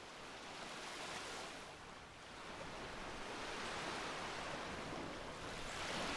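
Steady rushing noise like ocean surf, swelling slowly and growing louder.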